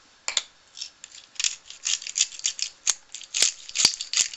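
Hand pepper mill grinding black peppercorns: a run of short gritty crunches, a few a second, with several sharper clicks in the last second and a half.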